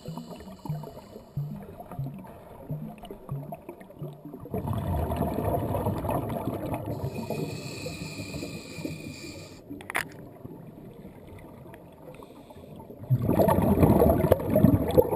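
Underwater rumble of moving water and bubbles around the camera, swelling about four and a half seconds in, easing off, then growing loud near the end. A soft low thud repeats a little faster than once a second at the start, and there is a single sharp click about ten seconds in.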